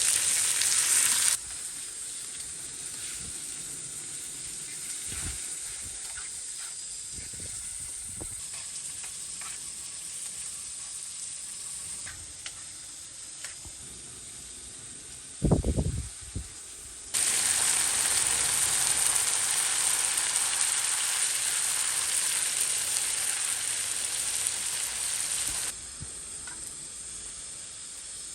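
Eggs frying in a pan, a steady sizzle that is loud at the start and again for several seconds past the middle, softer in between. A short low thump comes a little past halfway, with a few small clicks scattered through.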